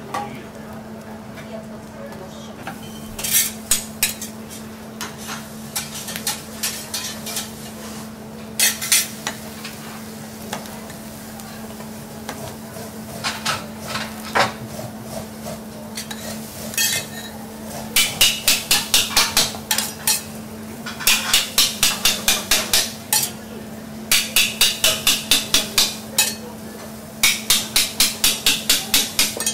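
Metal teppanyaki spatulas striking the steel griddle while chopping garlic. Scattered single taps give way, about two-thirds of the way through, to runs of quick rhythmic chopping strikes at about four or five a second, over a steady low hum.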